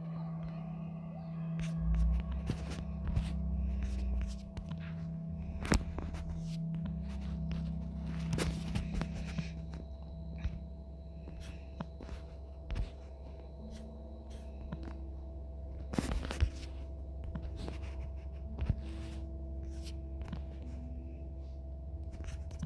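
Weather radio receiver during dead air: a steady low hum with a faint held tone and scattered crackling clicks and scrapes, the sharpest about six seconds and sixteen seconds in.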